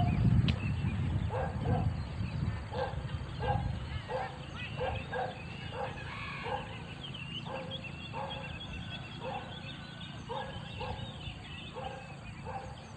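An animal calling over and over in short calls, two or three a second, with small birds chirping higher up. A low rumbling noise in the first few seconds fades out.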